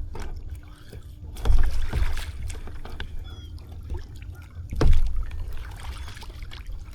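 Thumps and knocking on a plastic Pelican Catch Classic 100 fishing kayak as a freshly landed snook is handled aboard, loudest about one and a half seconds in and again near five seconds, over a steady low rumble.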